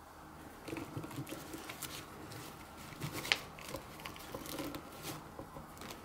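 Plastic toy dolls being handled and moved about on a play mat: soft rustling of doll clothes and hair with small plastic taps, and one sharper click about three seconds in.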